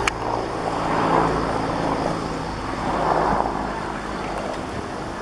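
Engines running: a steady low hum under a rushing noise that swells about a second in and again about three seconds in, with a sharp click at the very start.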